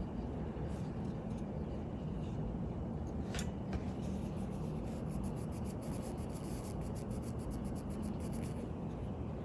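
Faint light clicks and a quick run of fine ticks from small metal watch parts and tweezers being handled, over a steady low hum.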